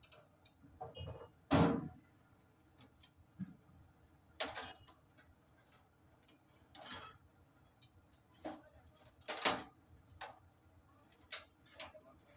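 Irregular metallic clinks and knocks of hand tools, a dozen or so sharp strikes at uneven spacing, two of them louder than the rest.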